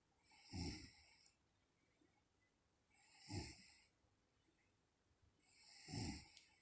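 A woman snoring in her sleep: three short snores, evenly spaced about two and a half seconds apart, with near silence between them.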